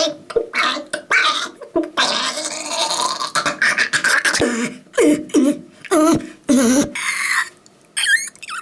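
A person making strange noises with the mouth and voice: a run of clicks and pops, hissing breath sounds, and short squeaky falling vocal glides, like beatboxing.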